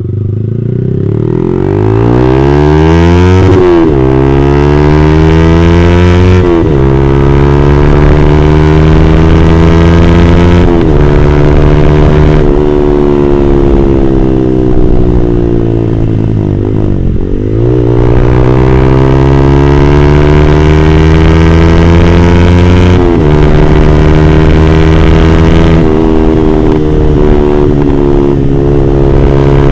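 Yamaha R15 V3's 155 cc single-cylinder engine through an aftermarket R9 GP-series racing exhaust, accelerating hard with the pitch climbing and then dropping sharply at each of several upshifts. About halfway through it slows with the pitch falling, then pulls away again with more upshifts.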